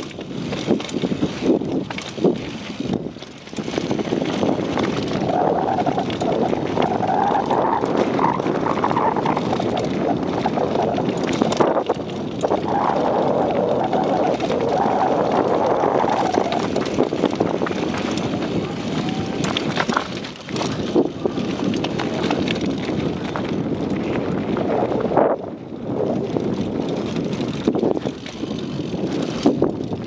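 Downhill mountain bike running fast over a dirt and rocky trail, with steady tyre noise and constant rattling and knocking of the bike over bumps. The noise dips briefly about three seconds in and again near the end.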